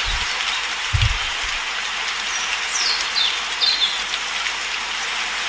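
Steady rain falling, with birds giving short downward-sliding chirps, several in a row about halfway through. A couple of soft low thumps come in the first second or so.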